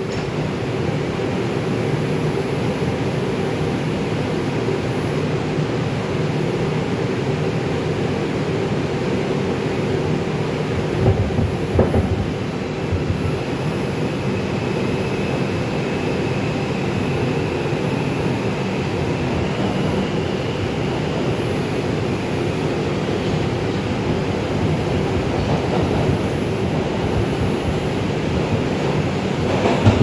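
R142 subway car running out of a station, heard from inside the car: a steady rumble of wheels and running gear on the track. There are a couple of knocks about eleven seconds in and a faint high whine in the middle.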